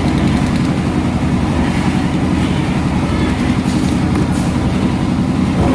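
A fishing boat's engine running steadily with a loud, even, low rumble.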